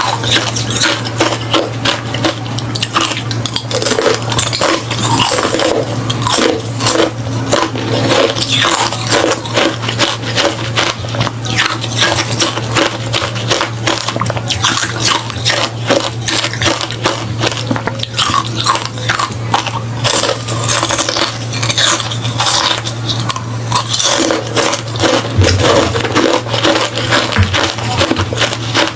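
Close-miked biting and chewing of hollow refrozen ice: a dense, continuous stream of sharp crunches and cracks, over a steady low hum.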